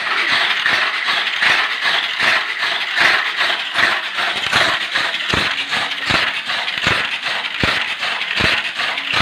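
Tamiya mini 4WD car running laps on a plastic track under a tuned 'dinamo setan' motor: a continuous high, rattling whir of the motor, gears and rollers against the lane walls. In the second half, sharp knocks recur about every three quarters of a second.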